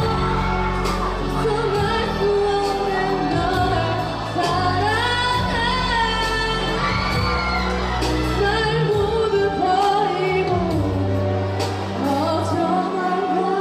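A girl singing a pop-style song into a handheld microphone over a backing track with a steady beat and bass.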